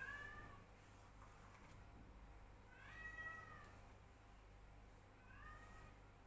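Domestic cat meowing three times, faintly: short rising-then-falling calls at the start, about three seconds in (the longest), and near the end.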